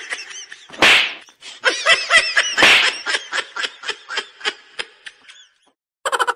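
A person laughing in a long run of repeated 'ha-ha' pulses that grow fainter and die away, with two louder bursts about a second and nearly three seconds in. A new quick run of pulses starts just before the end.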